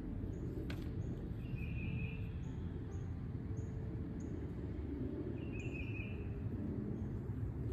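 Garden ambience: a bird repeating a short high chirp about twice a second, with two brief buzzy trills, over steady low background noise.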